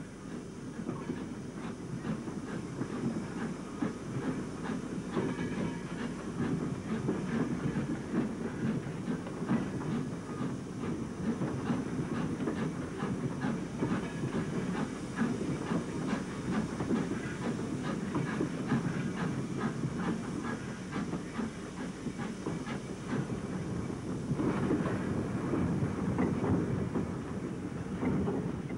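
A steam train of a small tank engine and wooden wagons running along the rails, a steady rumble with constant rattling and clicking of wheels on the track and some steam hiss. It grows a little louder near the end.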